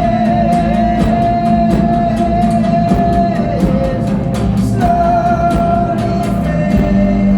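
Live band music from a concert hall: drums keep a steady beat under long, held wordless vocal notes that bend in pitch, over a steady low note.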